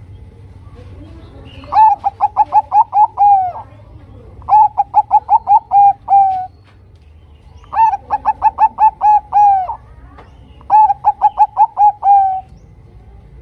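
Bangkok-strain zebra dove (perkutut) singing: four bouts of rapid staccato cooing notes, each bout ending on a longer drawn-out note.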